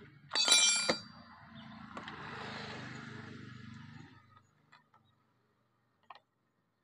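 A metal tool clanks once with a short ringing about half a second in. A low steady rumble with hiss follows for about three seconds and fades, then a few faint clicks.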